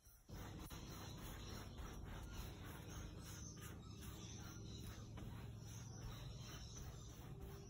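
Faint scratchy rubbing of a flat paintbrush scrubbed back and forth across canvas, blending acrylic paint, in short repeated strokes.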